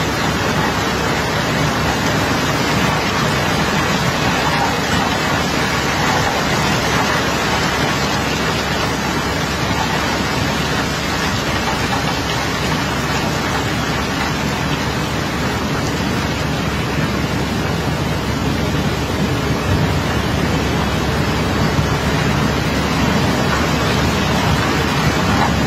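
Steady rushing of water washing across a barge deck, with a low machine hum underneath.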